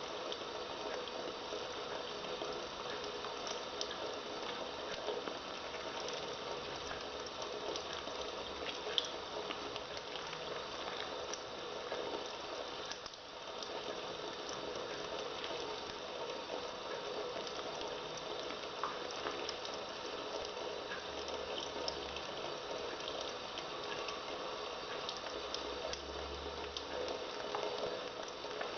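Hands being soaped and washed: a steady, wet, bubbly sound of lather and water, with many small crackles and a short lull about 13 seconds in.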